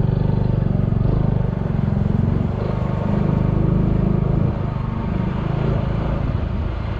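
Kawasaki Fury 125 underbone motorcycle's single-cylinder engine running steadily as it is ridden at low speed, its note easing off slightly about four and a half seconds in.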